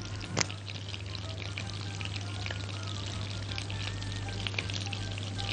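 Butter and vegetable oil sizzling and crackling in a heating wok, with one light tap about half a second in, over a steady low hum.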